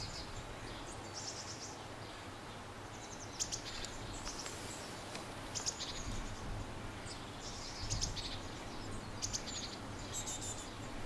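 A small songbird giving short, high chirping phrases, about eight of them, spaced a second or so apart, over a steady low background noise.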